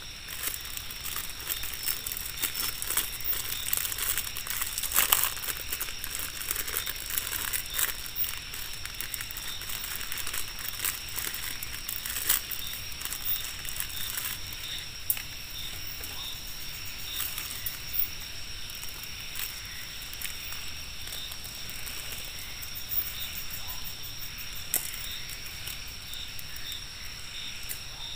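Plastic packaging of instant noodles crinkling and crackling as the packets are handled and torn open, in irregular bursts that are densest about 5 s in. A steady high insect drone runs underneath.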